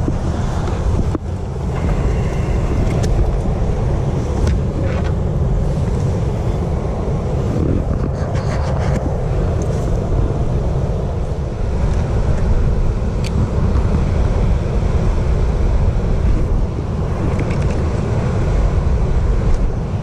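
Bass boat under way with its Mercury four-stroke Pro XS outboard running steadily, heavy wind buffeting the microphone over a low rumble.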